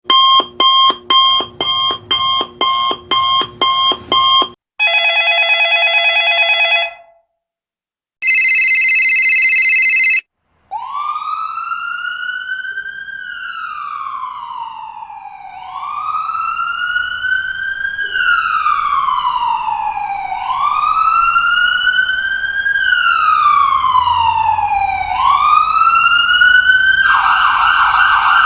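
A run of sound effects: a rapidly repeating electronic beep, two short steady buzzer tones, then an emergency-vehicle siren that wails up and down slowly for about sixteen seconds before switching to a fast warble near the end.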